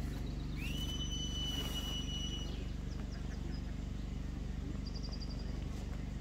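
A long whistle that rises at the start and then holds one steady high pitch for about two seconds, and a short rapid trill of high whistle notes near the end, over a steady low hum.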